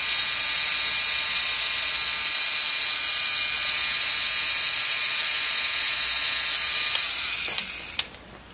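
3Doodler 3D pen's small geared motor running as it feeds and extrudes plastic filament: a steady, high mechanical whirr that fades out about seven seconds in, followed by a single click near the end.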